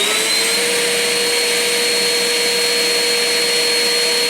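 Scheppach HA1000 dust extractor running at full speed, a loud steady rush of air with a high whine. Just switched on, its pitch rises and settles in the first half second, then holds steady.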